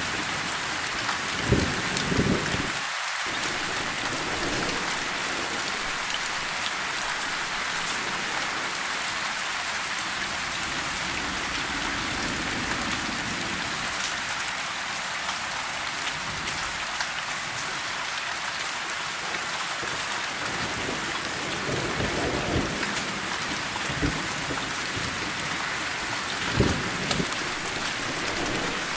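Steady rain falling on tree leaves, an even hiss, with a few brief low thumps or rumbles breaking through, near the start and twice in the last third.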